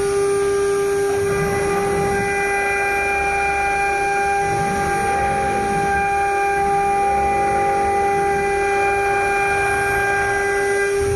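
CNC router spindle running with a steady whine and overtones while its bit cuts grooves in an aluminium composite panel, with a rough cutting noise underneath.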